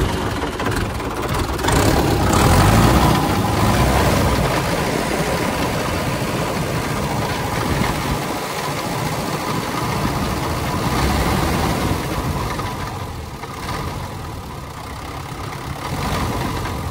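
Mahindra Yuvo 575 DI tractor's diesel engine running steadily just after starting, with noise from the radiator fan, whose bearing has failed.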